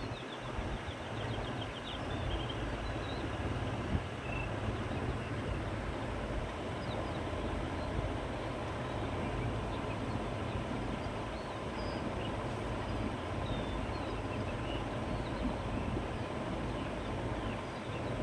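Steady wind blowing over open countryside, a continuous rushing with a low rumble, with faint bird chirps scattered through it.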